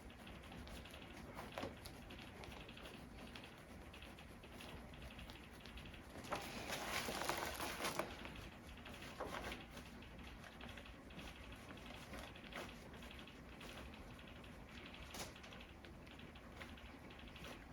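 Faint rustling with scattered light taps and clicks from hands working over the patient and the treatment table, with a longer rustle about six to eight seconds in.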